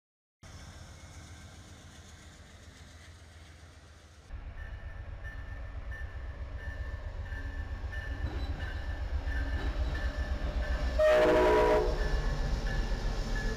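Amtrak diesel passenger train rumbling past at close range, its low rumble growing louder, with one short, loud horn blast about eleven seconds in.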